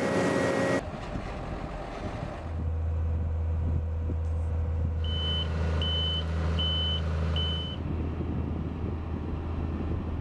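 Heavy machinery running with a steady low engine drone, and a reversing alarm beeping four times at an even pace about halfway through. A louder machine noise cuts off abruptly just under a second in.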